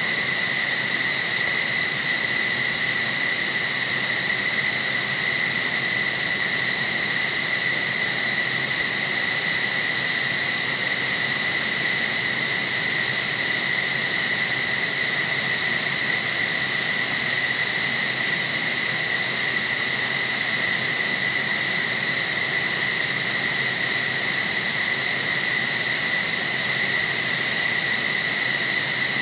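Twin General Electric F110 turbofans of an F-15SG running steadily at idle after start-up: a constant high turbine whine over a steady hiss.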